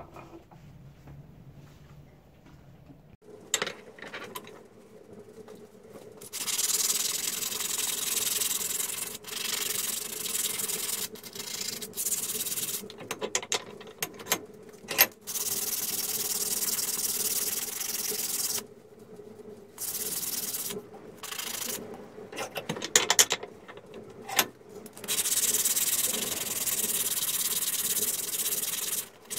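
Steel blacksmith's hammer head clamped in a bench vise being sanded by hand with abrasive paper: long rubbing strokes in runs with short pauses. It starts a few seconds in, after a quiet stretch.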